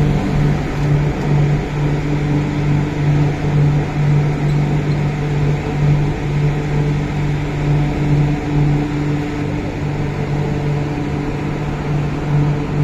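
MTR Kwun Tong Line Q-Train running at a steady speed, heard from inside the carriage: an even rumble of wheels on track under a constant low hum.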